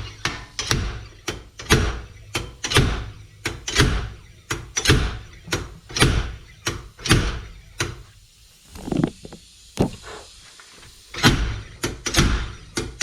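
Slide hammer being worked to pull a stuck front wheel hub assembly off: sharp metal knocks about two a second, pausing for a couple of seconds about two-thirds of the way through, then starting again.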